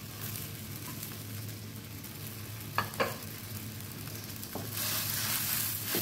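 Spicy seafood curry simmering and sizzling in a wok, a steady hiss with two short knocks about three seconds in. Near the end the hiss grows louder as a wooden spatula stirs the curry.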